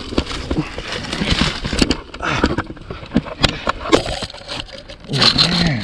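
Tree branches and leaves crackling, with twigs snapping and repeated sharp knocks as someone moves about in a tree, and a short vocal sound near the end.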